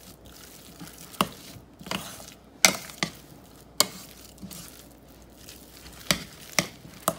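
Metal spoon stirring and mashing soft boiled potatoes in a metal pot: a soft squishing with sharp clinks, about eight at irregular intervals, as the spoon strikes the pot.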